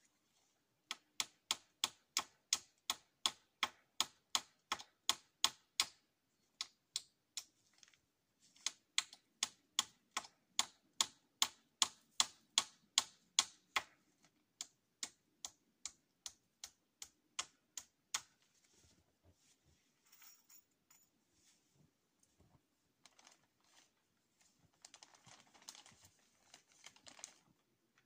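Hammer driving nails: a steady run of sharp strikes, about three a second, with a short break, then slower, more spaced strikes. The hammering gives way to fainter scattered rustling near the end.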